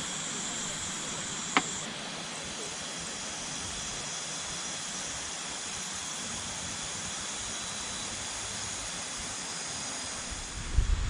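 Steady night-time insect chorus: an even high hiss with a couple of held high tones. A single sharp click comes about a second and a half in, and low wind rumble on the microphone starts near the end.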